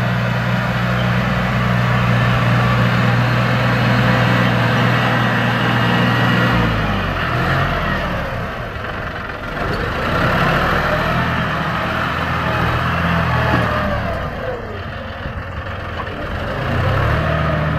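Diesel engine of a John Deere 5065E tractor running under load as it pulls a seven-disc plough through the soil, passing close by. The steady engine note changes about six and a half seconds in, as the tractor draws near and turns away.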